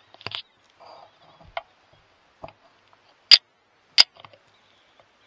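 Two sharp clicks about two-thirds of a second apart, among faint rustling and small ticks.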